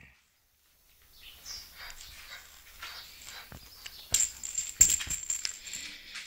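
West Highland white terrier tussling with a toy snake: irregular scuffling and scraping with many sharp clicks and knocks, starting after about a second of near silence and loudest around four to five seconds in.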